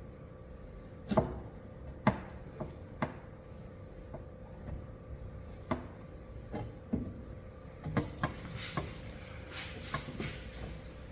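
About a dozen light, irregularly spaced taps and knocks on an aluminium car hood during paintless dent repair, the sharpest two near the start.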